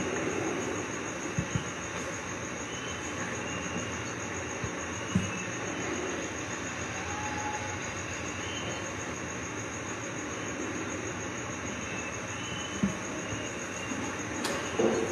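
Steady room noise with a faint, steady high whine throughout, broken by a few soft knocks: about five seconds in, again near thirteen seconds, and just before the end.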